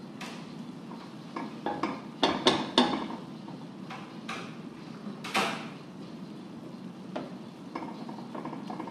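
A slotted spatula and a spoon scraping and knocking against a frying pan as a shredded chicken and vegetable filling is tossed, in irregular strokes. The loudest knocks come a little over two seconds in and again around five seconds.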